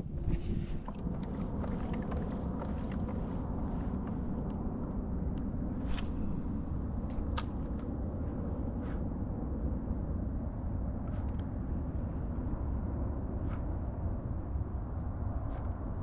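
Motorboat's outboard engine running steadily nearby, a continuous low rumble. A few light clicks sound over it about every two seconds.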